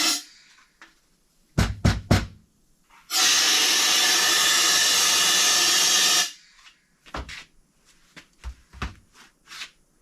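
Compressed-air blowgun blasting belt fragments and debris out of the engine block: one loud steady hiss of about three seconds that cuts off sharply, preceded by a few quick knocks from handling.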